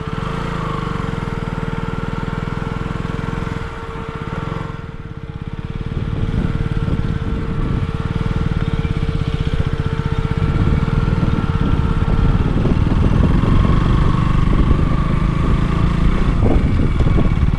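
A motor vehicle's engine running steadily, getting louder about six seconds in. A steady thin tone sounds over it and stops about twelve seconds in.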